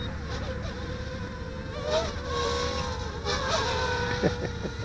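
Vifly R220 M2 FPV racing quadcopter in flight, its four 2205 2600KV brushless motors and propellers buzzing with a thin whine whose pitch rises and falls as the throttle changes. It surges louder about two seconds in and again a little after three seconds.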